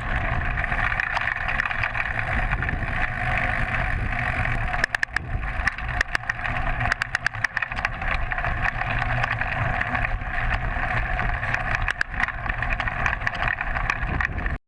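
Muffled wind and road rumble of a bicycle being ridden, picked up by a GoPro sealed in its camera case on the bike, with a run of sharp clicks and knocks from about five to eight seconds in as the bike jolts over bumps.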